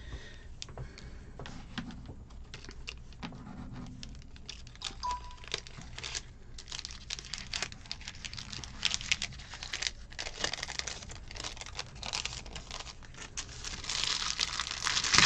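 Clear plastic packaging sleeves crinkling and rustling in the hands as die cuts are peeled out and a cellophane bag is opened, in irregular crackles that grow denser and louder near the end.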